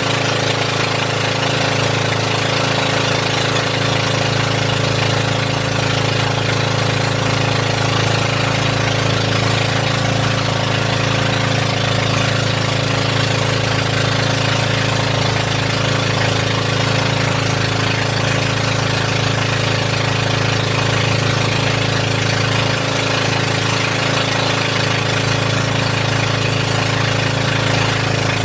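Boat engine running steadily at a constant speed, a loud, even drone with a rough, knocking edge.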